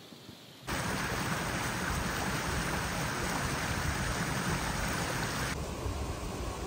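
Steady rushing of flowing river water, starting abruptly about a second in, with a low rumble under it. The higher hiss drops away near the end.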